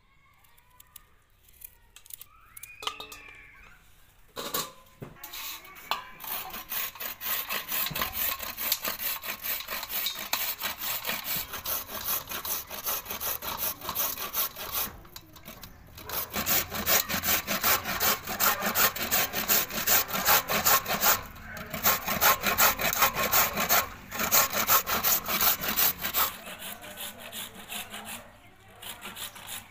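Fresh carrots being grated on a stainless-steel box grater: quick, repeated rasping strokes, starting a few seconds in, with a few short breaks.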